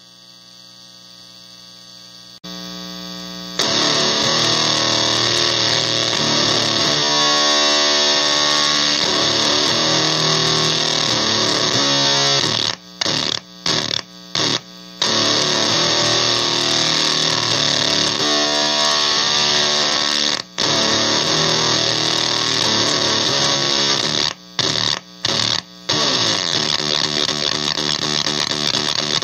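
Electric guitar in drop D played through a Basic Audio Pendulum pedal in oscillation mode, set for staccato with clicky artifacts on palm mutes, giving a noisy, heavily distorted tone. After a faint ringing tail it comes in loud about three and a half seconds in, then cuts out abruptly in short gaps, a quick run of them near the middle and again near the end.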